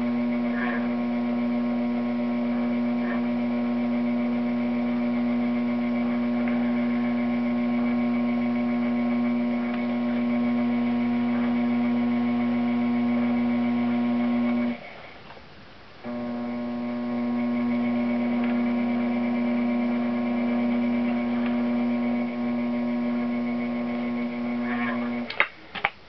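Electric potter's wheel motor humming steadily while spinning, a steady electrical tone with overtones. It cuts out abruptly about 15 seconds in, comes back about a second later, and stops again near the end.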